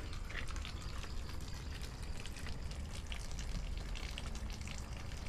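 Water from a garden hose running into a shallow tarpaulin pond: a steady pouring, trickling splash while the pond is being filled.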